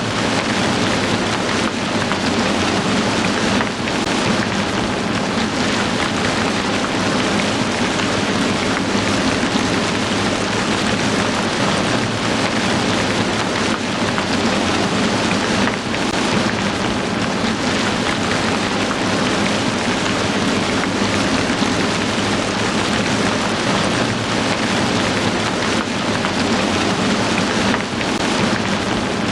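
Heavy rain falling steadily: a dense, even hiss of drops on surfaces, holding at one level throughout.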